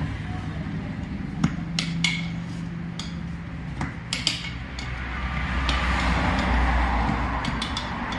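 Steel tyre levers clinking irregularly against a cast alloy motorcycle rim as the tyre bead is levered over the rim edge. A low rumble swells in the background during the second half.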